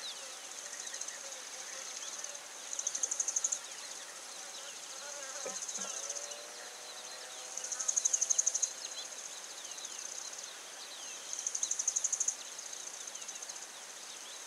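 Insects trilling: a steady high buzz that swells into louder, rapidly pulsed bouts about a second long, roughly every four seconds.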